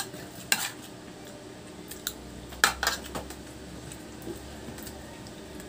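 Spoon and fork clinking and scraping on a stainless steel compartment tray during a meal: a few sharp clinks, one about half a second in and a cluster around two to three seconds in.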